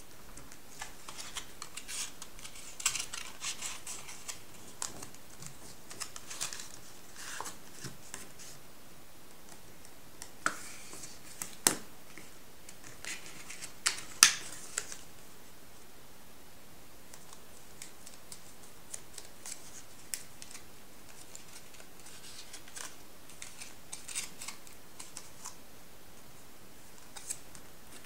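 Metallised paper being folded and creased by hand: irregular crisp crackles and rustles, busiest in the first half, with a few sharp snaps around the middle.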